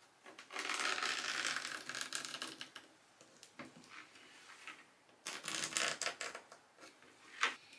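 A pen scratching across hardboard as it traces around the edge of an old trim panel, in two longer stretches of scratching with fainter strokes between, and a short sharp tap near the end.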